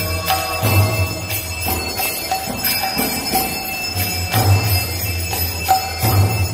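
Small brass hand bell rung without a break during a temple arati, a steady high ringing, with a deep low beat about every one to two seconds.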